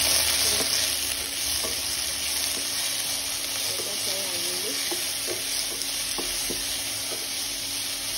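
Panch phoron spices tempering in hot ghee in a pan: a steady sizzle with scattered sharp pops as the seeds crackle.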